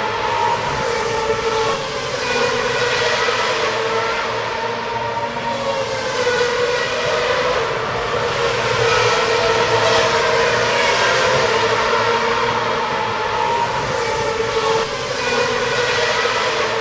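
Racing car engines running at high revs, several at once, their pitches rising and falling as they pass and overlap in a continuous, steady din.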